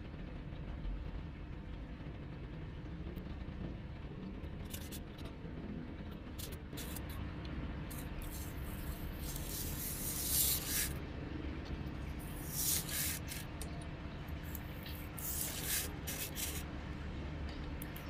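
A small knife cutting through a polystyrene foam sheet in repeated scratchy, squeaking strokes. The strokes start a few seconds in and are loudest in the second half, over a steady low hum.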